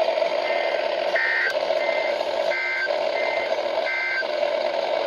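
Emergency Alert System end-of-message data bursts on NOAA Weather Radio: six short, buzzy two-tone digital bursts about two-thirds of a second apart, alternating fainter and louder as two stations' signals overlap. A steady radio hiss runs beneath them.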